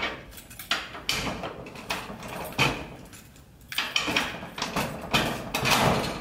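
A padlock and steel hasp clanking and rattling against a corrugated steel roll-up storage door while the padlock is worked into the latch. There are several sharp metallic knocks and rattles, about a second or so apart, with the door panel shaking behind them.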